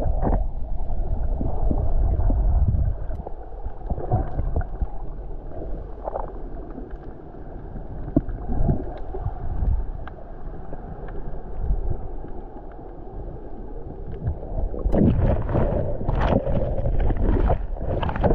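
Underwater water noise: a muffled low rush and gurgle of moving water with scattered small clicks. It is loudest about the first three seconds, quieter in the middle, and rises again with sharper splashing bursts near the end.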